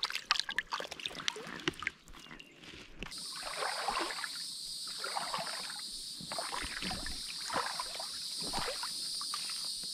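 Water splashing and sloshing as a bowfin is let go from the hands into a shallow creek. About three seconds in, a steady high-pitched buzz begins, with irregular sloshing of water from moving through the creek over it.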